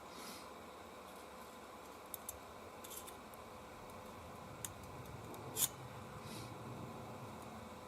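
Small clicks and short scrapes of hands working on a hairdryer's plastic parts and motor during a teardown, with a sharp click a little over halfway through. A faint steady electrical hum sits underneath.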